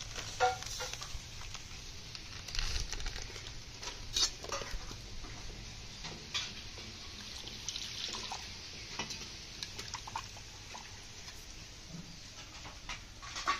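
Plastic packet of semolina rustling as it is opened and tipped out, with the grains pattering into an aluminium bowl and scattered light knocks of the metal bowls being handled.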